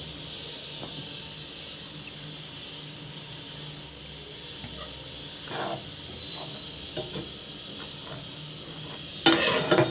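A pan of milk sauce simmering on the stove: a steady hiss with a few faint bubbling pops. Near the end comes a short, louder noise.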